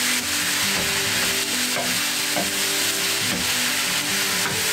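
Minced meat and chopped onion sizzling in a frying pan, stirred with a wooden spatula.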